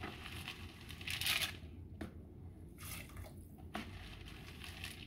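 Wet, freshly rinsed pinto beans scooped by hand from a plastic bowl into a cooking pot, with soft squishing, dripping and a few light clicks. A short rush of wet noise comes about a second in.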